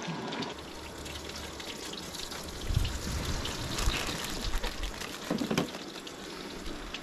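Panko-crumbed fish shallow-frying in oil in a pan on a camp gas stove, a steady sizzle full of fine crackles, with a few short clatters.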